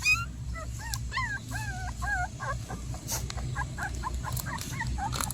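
Puppies whimpering and yipping: many short, high, rising-and-falling squeaks and whines, several overlapping.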